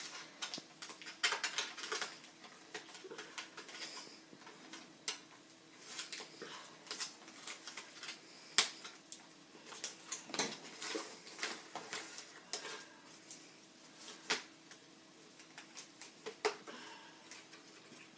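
Cardboard packaging being worked by hand: irregular rustles, scrapes and sharp clicks as the box insert holding a toy blaster is pulled and bent, with one louder snap about halfway through.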